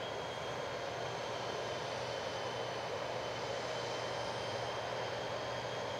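Boeing 747-400 jet engines running steadily at low taxi power. A broad rush carries a thin, constant high whine, with no rise in pitch or level.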